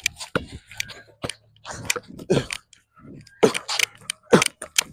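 Basketball being dribbled on an asphalt court: a series of sharp knocks at irregular intervals as the ball hits the ground.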